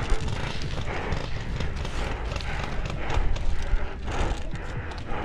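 Fast footsteps with gear rattling and knocking as an airsoft player moves, over a steady rumble on the microphone.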